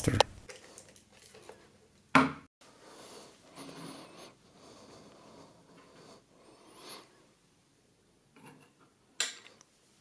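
Handling of a plastic handheld cable tester: one short, sharp knock about two seconds in, faint rubbing and small clicks, and another click near the end.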